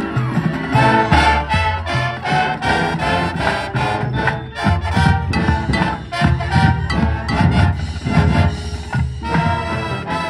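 Marching band playing: the brass section plays full chords over percussion, with regular accented hits in the low end.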